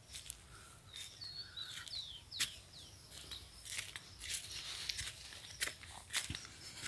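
Footsteps crunching on dry soil and leaves, as a string of short crisp crunches. A bird chirps a few times, with short gliding notes, about one to three seconds in.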